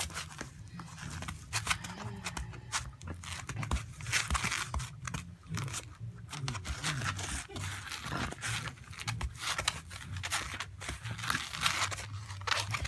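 Close, irregular rustling, scraping and clicking, with several louder scrapes around the middle and near the end: a Shiba Inu playing with and mouthing a person's hand against fabric.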